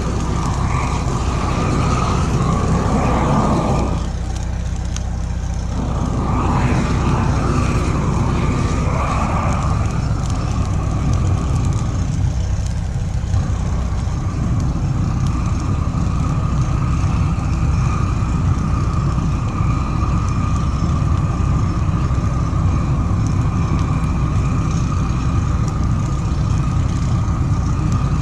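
Caterpillar D4 7U crawler dozer's four-cylinder diesel engine running steadily under way, a loud continuous drone. The higher clatter drops away for a couple of seconds about four seconds in, then returns.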